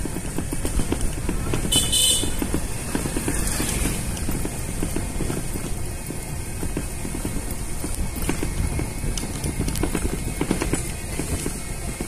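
Ride in a small vehicle along a rural road: steady low rumble with frequent rattles and knocks, and a short high toot about two seconds in.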